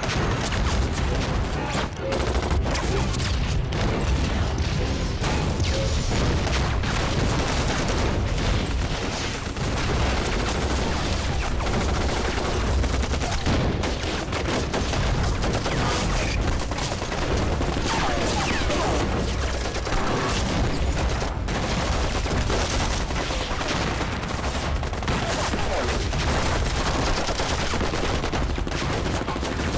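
Battle gunfire: a dense, unbroken fusillade of rifle and machine-gun shots with explosions mixed in, as a night ambush opens up.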